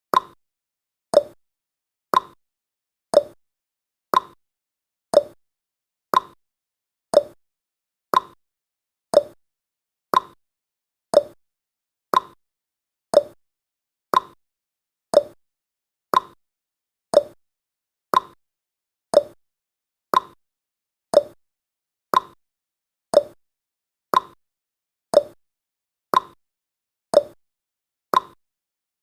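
Countdown timer's ticking sound effect: a short, sharp tick once every second, evenly spaced, each dying away at once.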